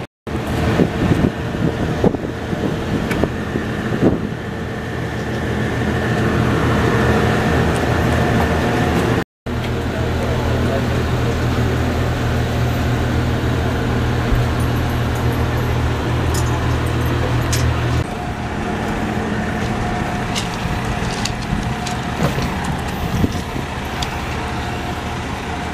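Diesel locomotive DE70 1's engine idling steadily, a low even drone with a steady higher hum over it, heard around and inside the cab; it cuts out briefly twice and drops a step in level about 18 seconds in. A few light knocks and clanks sound over it.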